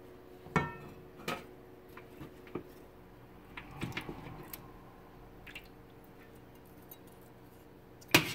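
Metal spoon and fork clinking and knocking against a china plate and a roasting pot: a ringing clink about half a second in, a few lighter knocks, a short cluster of scrapes and taps around four seconds in, and the sharpest clink near the end, over a faint steady hum.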